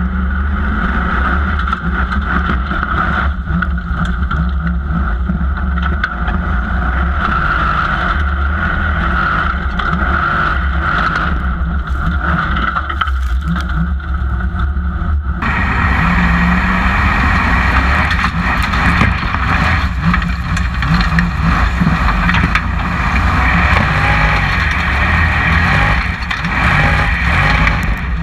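Formula Offroad car's engine running hard under load as it climbs a steep slope, heard from a microphone mounted on the car. About halfway through the sound turns suddenly brighter, from a different mounting point on the car.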